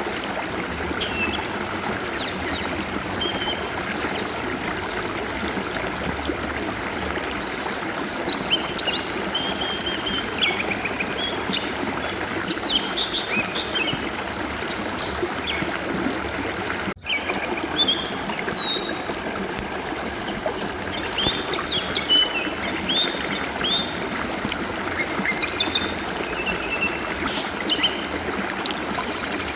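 Steady trickling, flowing stream water with an oriental magpie-robin singing over it, many short varied whistles and chirps.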